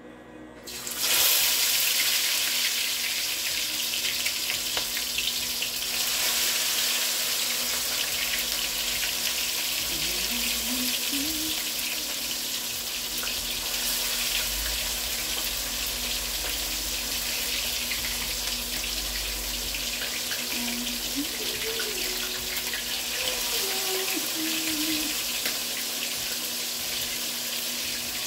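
Seasoned chicken pieces browning in hot oil: a steady sizzle that starts suddenly about a second in as the chicken goes into the pan.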